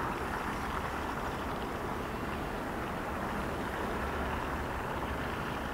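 Steady outdoor background noise: an even low rumble and hiss with no separate knocks or clear motor tone.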